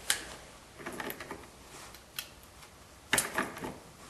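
Light metallic clicks and rattles of cartridges being handled and loaded into a .32 H&R Magnum revolver's cylinder, scattered at first, with a louder cluster of clicks about three seconds in.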